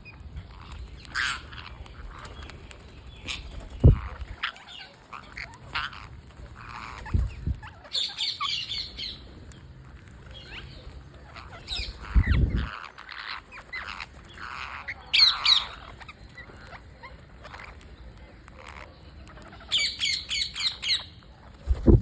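Green parrots squawking with harsh, scratchy calls, breaking into quick runs of calls about a third of the way in and again near the end. A few low thumps come in between.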